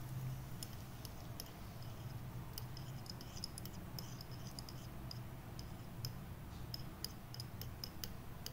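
A tiny metal spoon clicking and scraping against a miniature ceramic saucepan as sweet red sauce is stirred: short, irregular light ticks that come more often in the second half, over a steady low hum.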